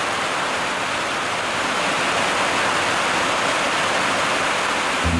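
Heavy rain pouring down hard, a steady, dense hiss of rain beating on grass and muddy, puddled ground.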